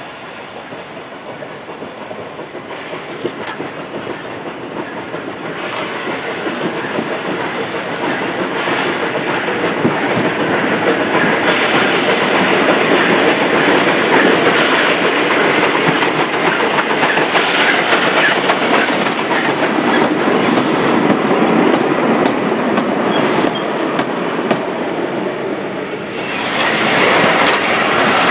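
SR 'Terrier' 0-6-0 tank engine No.2678 'Knowle' and its coaches approaching and running past, growing steadily louder, with the wheels clicking over the rail joints. The sound jumps louder again near the end.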